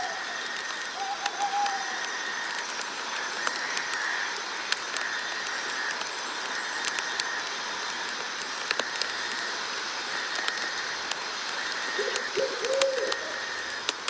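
Night nature ambience: a steady hiss with a chirring band that swells about once a second, and a bird's low call notes, a short one about a second in and a few more near the end.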